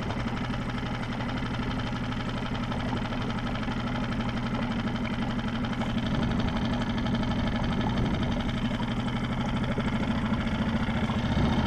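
Outboard motor running steadily on the inflatable boat, an even low drone with a fast regular pulse, growing a little louder about halfway through.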